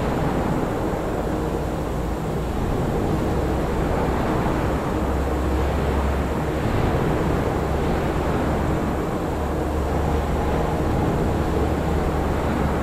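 General Motors factory floor ambience at medium activity: a steady low machinery rumble and hum under a broad wash of industrial noise. The low hum grows stronger about five seconds in.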